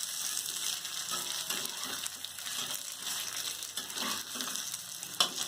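Fish pieces sizzling as they shallow-fry in ghee in a pan, with a spatula scraping and knocking against the pan as they are turned; the sharpest knock comes near the end.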